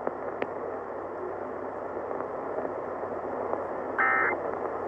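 AM radio static hiss after an Emergency Alert System voice message, then about four seconds in a short burst of the EAS digital data tones, a warbling two-tone squeal: the start of the end-of-message code that closes the alert.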